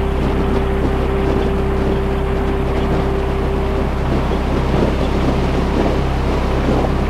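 Harley-Davidson motorcycle cruising at steady highway speed: an even engine drone with wind rushing past the handlebar microphone, and a thin steady whine that is strongest for the first four seconds.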